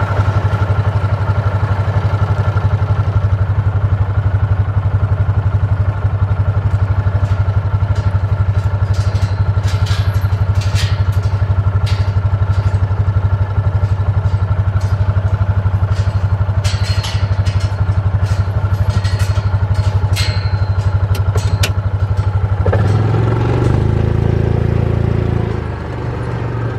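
Side-by-side utility vehicle's engine idling steadily, with scattered sharp clicks and rattles in the middle; near the end the engine revs up as the vehicle pulls away.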